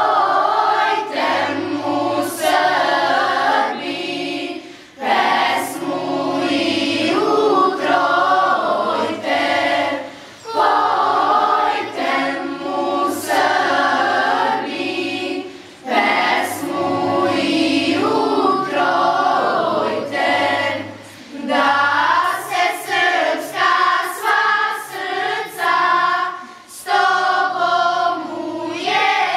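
Children's choir singing, in phrases of about five seconds with short breaks for breath between them.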